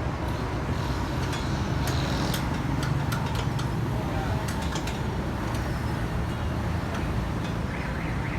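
A steady low engine hum, with scattered light clicks and taps throughout.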